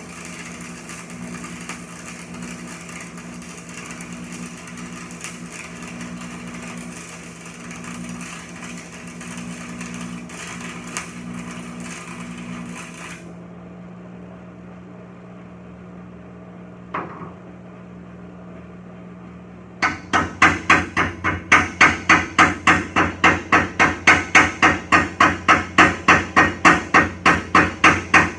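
Arc welding on a broken bush hog (rotary cutter): the arc crackles and sizzles over a steady hum and stops about 13 seconds in, leaving the hum. About 20 seconds in a hammer starts striking the freshly welded steel in a fast even rhythm, three or four blows a second, louder than the welding.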